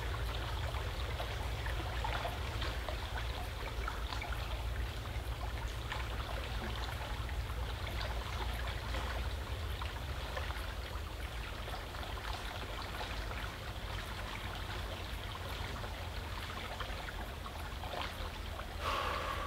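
Small creek flowing and trickling steadily, with a brief louder sound near the end.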